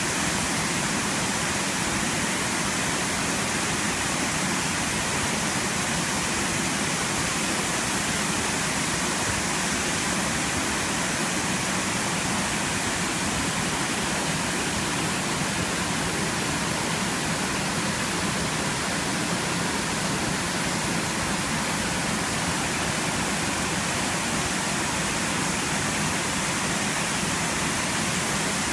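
Waterfall crashing into a plunge pool: a steady, unbroken rush of falling water.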